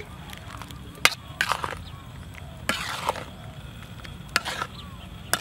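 Metal spatula scraping and knocking against a metal wok as it stirs chunks of banana in thick sugar syrup: about five separate strokes, the sharpest one about a second in.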